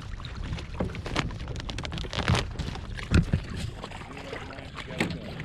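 Wind on the microphone and water moving against a kayak's hull, with scattered knocks and clicks. The loudest knock comes about three seconds in.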